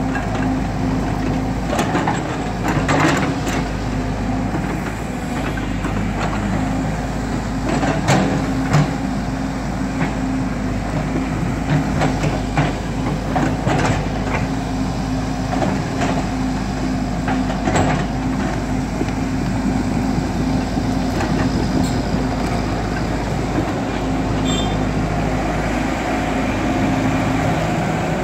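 Excavator's diesel engine running steadily under load, with intermittent sharp clanks and knocks, louder around a couple of seconds in and again near eight seconds.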